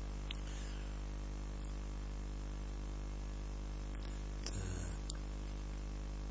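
Steady electrical mains hum with its overtones, picked up by the recording, with a few faint mouse clicks.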